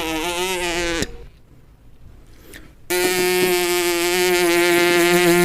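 Two long, buzzy held notes of a cartoon sound effect: the first wavers in pitch and stops about a second in, the second starts about three seconds in and holds steady.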